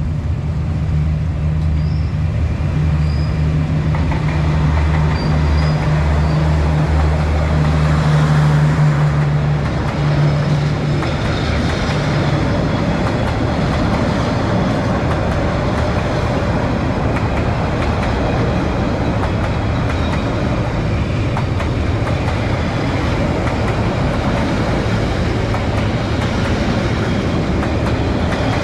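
Train passing close by: the diesel locomotive's engine drone for about the first ten seconds, then the steady rumble of the wagons rolling over the rails.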